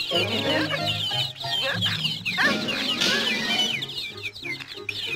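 A crowd of baby chicks peeping in quick, high, falling chirps over background music.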